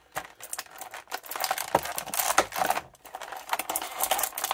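Thin clear plastic blister tray crinkling and crackling in the hands, with quick irregular crackles, as an accessory is pressed out of its moulded slot.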